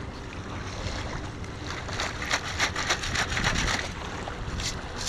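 A long-handled perforated metal sand scoop digging in shallow surf: water splashing and sloshing, with sand and shell grit rattling and clicking against the metal in a quick run of clicks in the middle.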